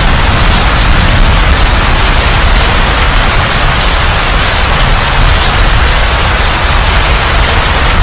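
Heavy rain falling steadily in a thunderstorm, a dense even hiss with a continuous low rumble beneath it.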